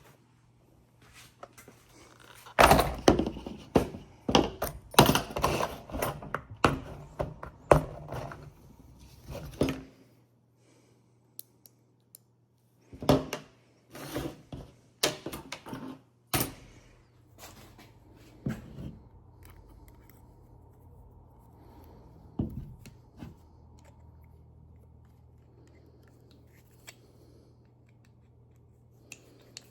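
Tools and parts being handled: bursts of clattering knocks and clinks, then a quieter stretch with a few single knocks over a steady low hum.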